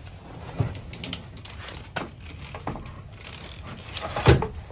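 A Group 65 car battery being lowered into its tray and set in place: scattered knocks and scrapes of the plastic case against the tray and cables, with a heavier knock about four seconds in.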